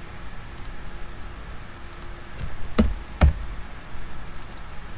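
Computer keyboard and mouse clicks from editing code: a few light scattered clicks, then two louder knocks about half a second apart around three seconds in.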